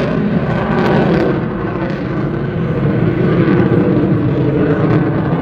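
Military jet flying high overhead: loud, steady jet engine noise.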